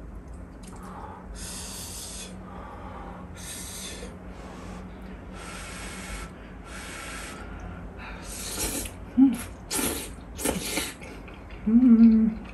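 Jjamppong noodles being slurped: a series of short, airy, hissing slurps, coming closer together in the second half, with a brief voiced hum near the end.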